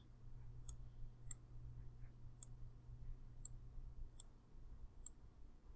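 Faint computer mouse clicks, about six spaced out over several seconds, over a low steady hum.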